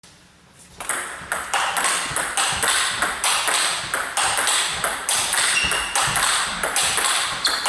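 Fast table tennis rally: the ball clicks off bats and table in an even rhythm of about four strikes a second, starting about a second in.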